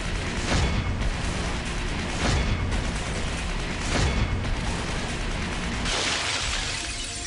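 Action movie trailer soundtrack: driving music punctuated by heavy booming hits, three of them about a second and a half apart. From about six seconds in, a bright rushing noise swells over the music.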